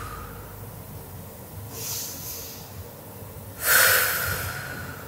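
A woman breathing deeply through a stretch: a soft breath in about two seconds in, then a strong breath out just before four seconds.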